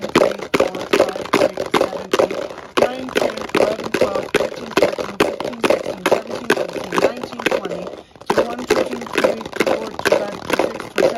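Dice rattling and clacking inside a lidded plastic food container as it is shaken hard back and forth, a quick run of knocks several times a second with a brief break about eight seconds in. The dice are the unchanging control in a shake test of mechanical weathering.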